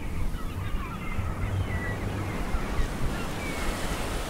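Surf and wind on the microphone, a steady rushing noise with a low rumble, with seabirds giving short faint cries now and then.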